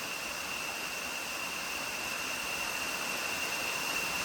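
Steady rushing of a small waterfall, with a thin, unbroken high-pitched tone running through it.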